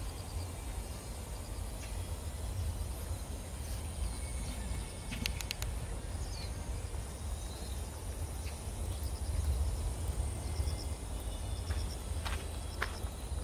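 Park ambience: a steady low rumble on the microphone under a thin, high, steady insect drone, with a few short clicks and, from about ten seconds in, evenly repeated short high chirps.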